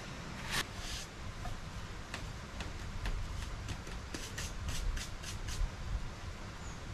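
Gloved hands rubbing curing salt into a slab of pork with rind on a wooden cutting board: an irregular run of short rubbing and scraping strokes, several a second. It is the first stage of dry-curing a ham.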